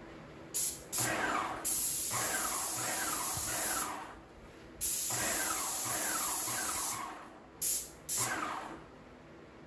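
Graco Magnum X5 airless paint sprayer spraying paint in several trigger pulls: a few short bursts and two longer passes of about two seconds each. Each pull gives a loud hiss with a repeating pulse about twice a second beneath it.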